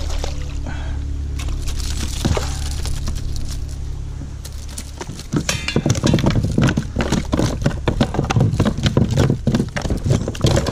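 A freshly caught piraputanga flopping and thrashing in the plastic hull of a kayak: a fast, irregular run of knocks and rattles that starts about halfway through, after a steady low hum that stops.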